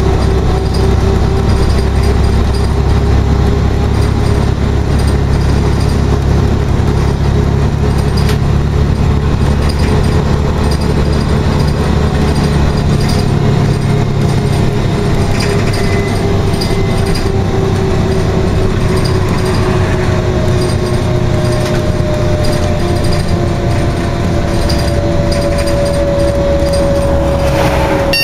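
Inside a Scania OmniCity articulated bus on the move: a steady low engine and road rumble with a whine that slowly falls in pitch, joined about two-thirds of the way through by a second, higher whine that also slowly falls. Short clicks and rattles are scattered throughout.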